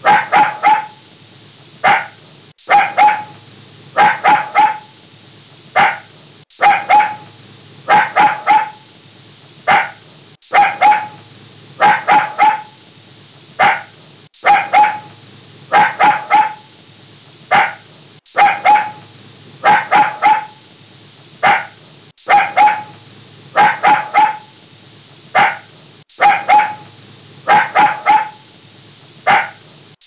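A puppy barking over and over in short, high yaps, singly or two or three in quick succession, about one every second.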